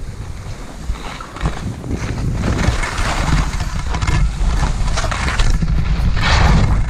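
Wind buffeting the microphone during a downhill ski run, a heavy rumble under a scraping hiss of edges on snow that grows louder from about two seconds in.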